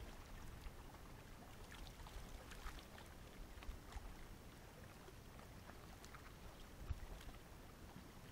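Faint outdoor ambience: a low rumble of wind on the microphone and water lapping below the rock, with a few faint ticks.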